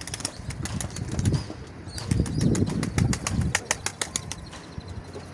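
Pigeons flapping their wings, with a quick run of sharp wing claps and a heavy whirring flutter, loudest in the middle.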